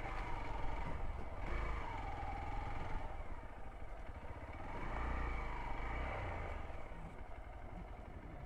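Hero XPulse 200 motorcycle's single-cylinder engine running as the bike rides along, its pitch rising and falling in slow swells, over a steady low rumble.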